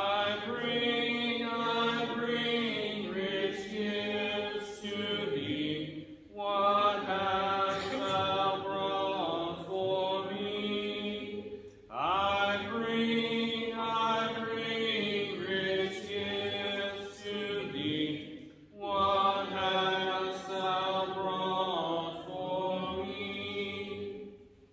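Congregation singing a hymn a cappella, many voices together, in four long phrases with short breaks for breath between them. The singing ends at the very end.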